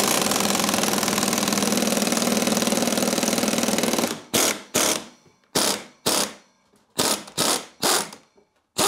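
Pneumatic impact wrench hammering for about four seconds, then fired in a string of short bursts, with a falling whine as it spins down after the last one, running the top nut onto a new magnetic ride strut.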